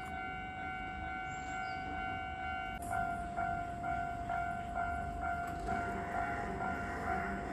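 Japanese level crossing warning bell ringing, its strikes coming about three a second from about three seconds in, over the low rumble of a train on the line.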